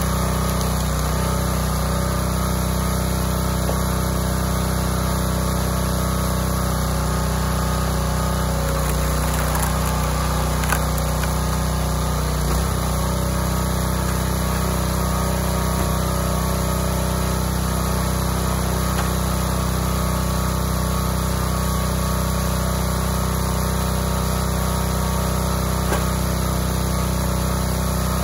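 Small gasoline engine of a hydraulic log splitter running steadily while the ram is worked to split logs, with a brief dip in pitch about twelve seconds in.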